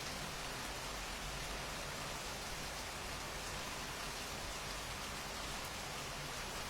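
Steady rain falling, an even hiss of drops with no breaks or surges.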